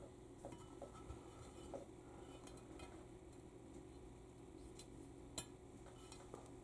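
Near silence with a few faint clicks of metal tools against the transmission valve body while a stuck piston is worked out of its bore, one sharper tick about five seconds in.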